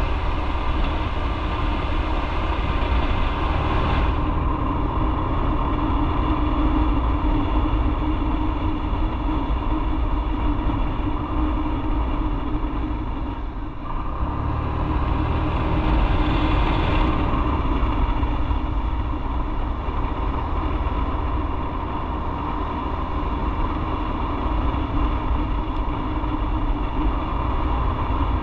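Motorcycle riding on the road: the engine runs steadily under strong wind and road noise, with a short dip in level about halfway through before it picks back up.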